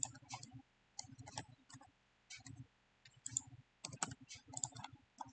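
Faint clicks of a computer keyboard and mouse, coming in short irregular clusters of a few clicks each.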